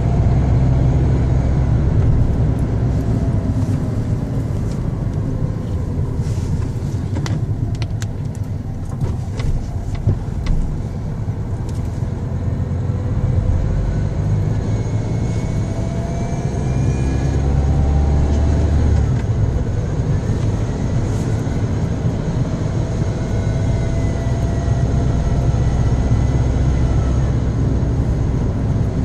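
Car engine running steadily, with a faint whine that slowly rises and falls in pitch several times and a few light clicks about eight to ten seconds in; the strange engine noise the owner is recording.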